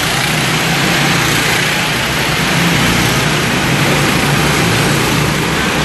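Several racing karts' engines running on the track, a steady, continuous drone mixed with a dense noise.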